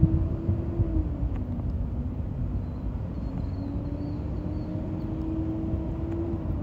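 Steady low rumble of a vehicle running, with a humming tone that drops in pitch a little over a second in and then rises back and holds.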